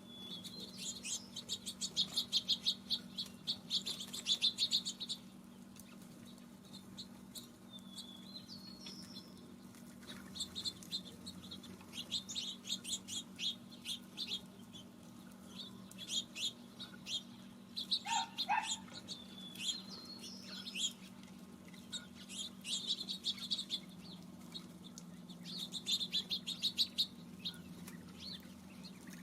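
Small feeder birds calling in several rapid runs of high chips, each lasting a few seconds, with a single falling whistle about two-thirds of the way through, over a faint steady low hum.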